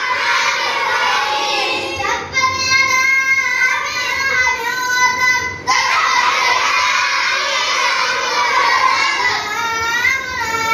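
A child reciting the Quran in a melodic chant, drawing out long held notes, with a brief break about five and a half seconds in.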